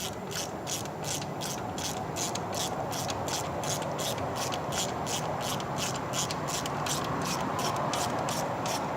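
Ratchet wrench clicking steadily, about four clicks a second, as a spark plug is run back into its cylinder.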